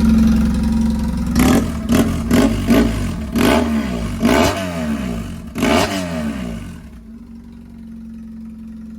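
BMW 1150's boxer twin engine running loud with its exhaust silencer removed, blipped about six times in quick succession before settling to a steady idle about seven seconds in.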